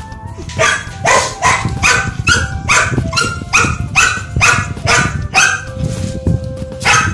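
A dog barking in a fast steady run, about three barks a second, that stops about five seconds in, with one more bark near the end.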